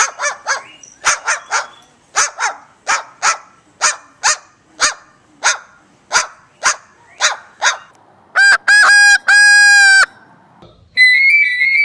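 A parrot making a quick series of short, honking calls, about two or three a second. These are followed by two long calls held at one steady pitch. A whistled tune that steps up and down begins near the end.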